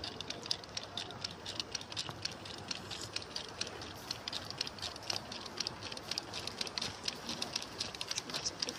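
A 16mm-scale SM32 model locomotive running along the track, giving a rapid, fairly even clicking and rattling of several clicks a second as it goes.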